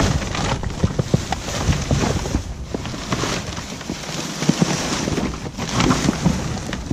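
Plastic trash bags and cardboard rustling and crinkling as someone digs through a full dumpster, with many small crackles and knocks.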